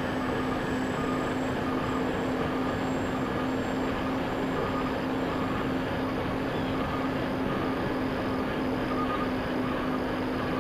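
Electric motors and propellers of a Dynam Skybus DC-3 RC model plane in flight, heard from its onboard FPV camera. A steady hum at constant pitch sits over rushing air noise, with a faint higher tone that cuts in and out about once a second.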